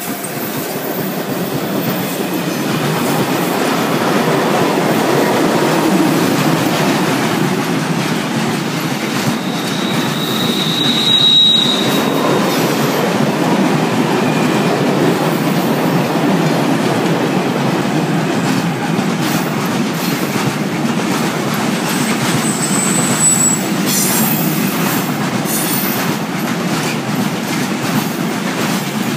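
Container freight train hauled by an ÖBB Taurus electric locomotive passing close by, its wagons running steadily over the rails. A brief high-pitched wheel squeal rises out of it about ten seconds in, and a shorter, higher squeal comes a little later.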